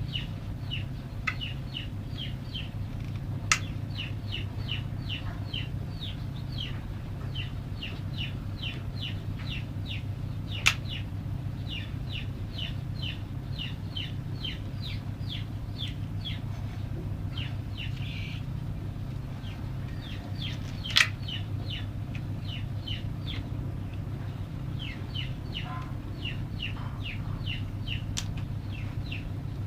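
Bird chirping: short, falling high-pitched peeps repeated about three times a second in runs with brief pauses. A steady low hum runs underneath, with a few sharp clicks.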